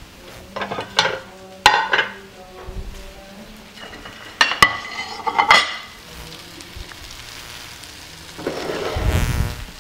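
Kitchen utensil clatter as a kookoo is served from a frying pan: a spatula clinking and scraping against the pan and plate in two short spells, about a second in and about four and a half seconds in, over a faint sizzle from the pan on the burner. A brief rushing noise comes near the end.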